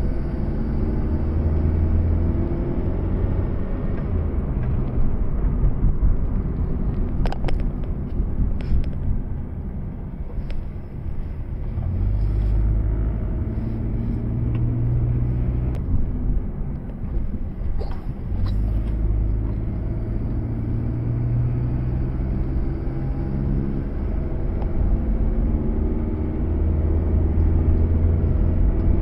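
Proton Saga's 1.3-litre four-cylinder engine and tyre rumble heard inside the cabin while driving: a steady engine hum with road noise, and the engine note rising near the end as the car accelerates. A few brief clicks come about a quarter of the way in and again past the middle.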